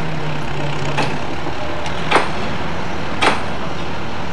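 JCB loader's diesel engine running steadily under load, with three sharp metallic clanks about a second apart.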